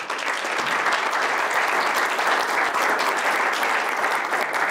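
An audience in a lecture theatre applauding: many people clapping, a dense, steady patter that starts suddenly and holds at the same loudness.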